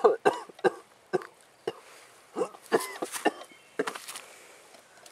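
A run of about a dozen short, sharp vocal yelps in quick succession, several falling in pitch.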